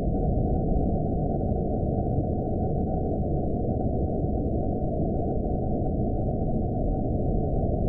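Horror-film ambience sound effect: a steady, dark, low rumbling drone with nothing in the upper range except a faint thin high tone, unchanging throughout.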